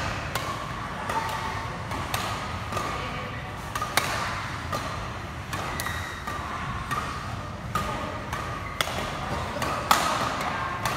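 Badminton rackets striking a shuttlecock back and forth in a doubles rally: sharp cracks at an uneven pace, roughly one every second.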